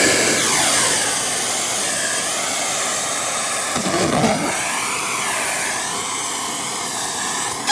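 Miele Boost CX1 bagless canister vacuum cleaner running at high suction, its motor whine rising and falling in pitch.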